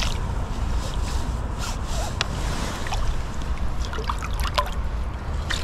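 Flowing river water trickling and gurgling over a steady low rumble, with a few small clicks and splashes.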